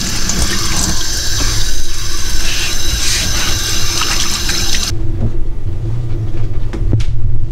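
Kitchen tap running into a stainless steel sink, the water splashing over a salted mackerel fillet as the salt is rinsed off. The water stops abruptly about five seconds in, leaving a low hum and a single click near the end.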